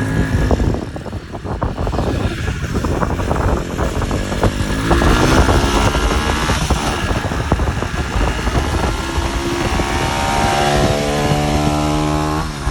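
Small 140cc motorcycle engine running and revving as it is ridden, its pitch climbing steadily over the last few seconds.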